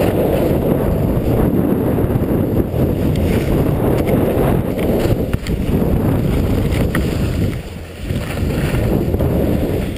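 Wind buffeting a chest-mounted GoPro HD Hero as a skier runs downhill, mixed with the run of skis over packed snow, heard as a steady, rough low rumble. It drops briefly about three-quarters of the way through.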